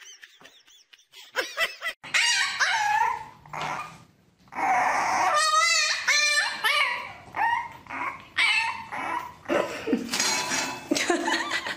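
Young puppy barking and whining: after a quiet first two seconds, a string of short high yelps and whines, with one long wavering whine about midway.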